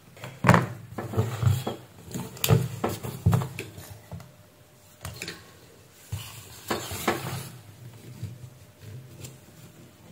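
Irregular clicks, taps and clatter of multimeter probes and a circuit board being handled and moved on a workbench.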